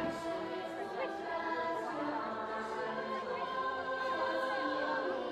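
Choral music from the fireworks show's soundtrack: a choir singing long held chords at a steady level.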